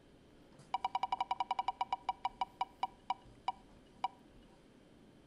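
Prize-wheel ticking sound effect: a fast run of sharp clicks that slows and spreads out as the wheel loses speed, stopping about four seconds in as it comes to rest.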